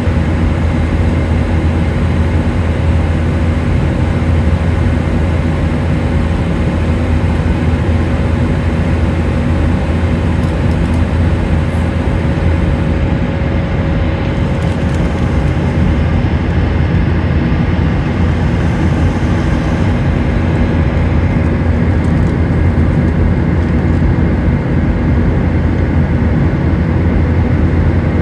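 Steady cabin noise inside a Boeing 737-800 in flight, heard from a window seat over the wing: the low drone of its CFM56-7B turbofan engines mixed with rushing airflow and a faint steady hum.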